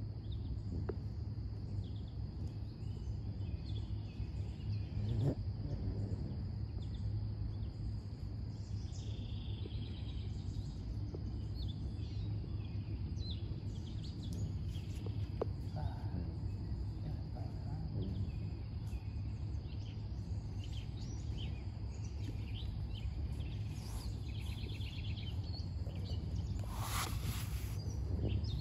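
Riverside woodland ambience: a steady low rumble under a faint steady high hum, with scattered short bird chirps. A brief hiss comes near the end.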